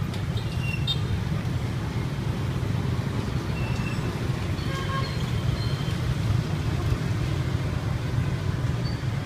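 Steady low rumble of street traffic, with a few faint short higher tones a few seconds in.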